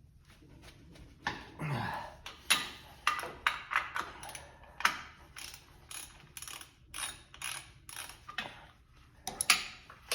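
3/8-inch drive ratchet set to loosen, clicking in short uneven strokes as a nut is backed off.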